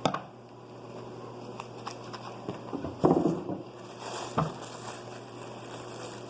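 Paper crinkling and rustling with scattered light taps as stuffing is pushed into a homemade paper squishy. The loudest rustle comes about three seconds in, with another short one a little later.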